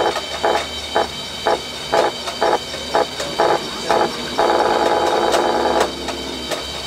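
Electronic sound from a model truck's sound module, pulsing about twice a second, then holding for about a second and a half some four and a half seconds in before pulsing again.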